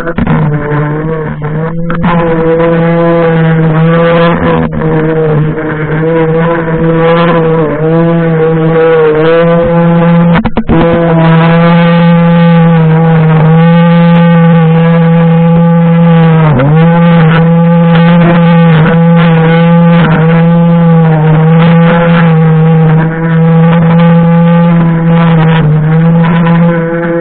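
String trimmer running at a steady high speed, its spinning line whirring through grass. The pitch dips briefly several times as the line bites into thicker growth, most sharply about two-thirds of the way through.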